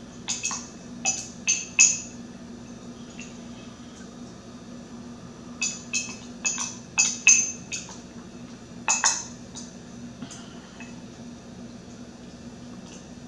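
Long metal spoon clinking against a tall drinking glass as a thick drink is stirred and scooped: a few quick clinks near the start, a run of them about six seconds in, and a louder pair about nine seconds in.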